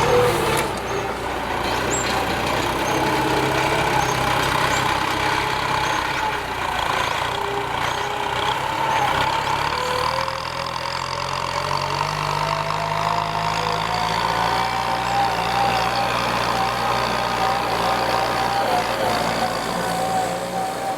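Kubota M9540 tractor's diesel engine running steadily under load while ploughing. A whining tone slowly rises in pitch over the second half.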